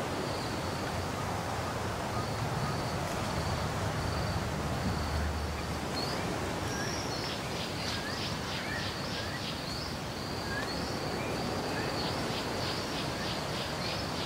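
Bush ambience: an insect trilling in a high, steady tone broken into short bursts, with birds calling from about halfway, in short rising chirps and runs of rapid notes, over a steady soft hiss. A low rumble comes and goes a couple of seconds in.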